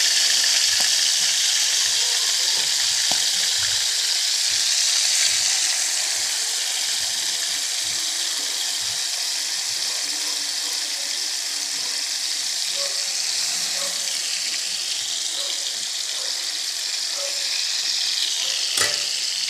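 Marinated chicken livers and gizzards sizzling as they fry in hot oil in a pan: a steady hiss, a little stronger in the first few seconds. A single sharp knock sounds near the end.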